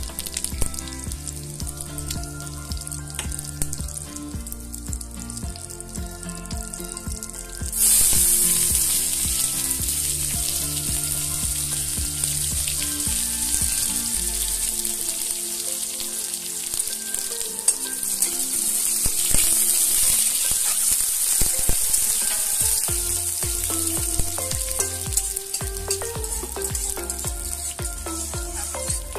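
Sliced onions hitting hot oil in a steel kadai about eight seconds in, setting off a loud sizzle that carries on as they fry and are stirred with a spatula; before that only a quieter frying sound. Background music plays throughout.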